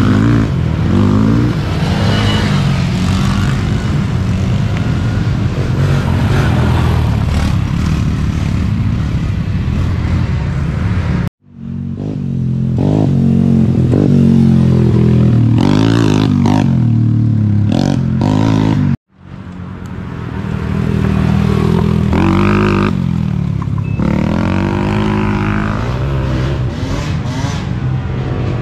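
Racing ATV engines revving up and down as the quads accelerate and ease off along a dirt trail. The sound cuts out to silence for an instant twice, about 11 and 19 seconds in, where clips are joined.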